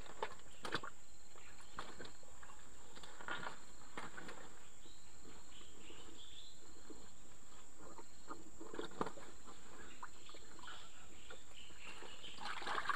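Insects chirping and buzzing steadily, with scattered soft rustles and knocks from a man working by hand in a muddy ditch.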